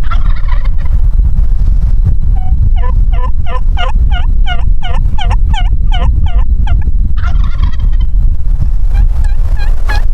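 Wild turkey gobbling twice, a rattling gobble at the start and another about seven seconds in. Between the gobbles comes an even run of about fifteen hen-style yelps, roughly four a second. Wind rumbles on the microphone throughout.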